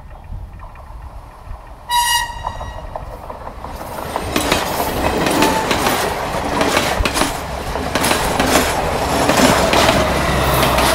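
A short train horn toot about two seconds in. Then a diesel-hauled passenger train passes close by, its wheels clacking rhythmically over the rail joints and growing louder, with the low hum of the locomotive's diesel engine at the end as the locomotive goes past.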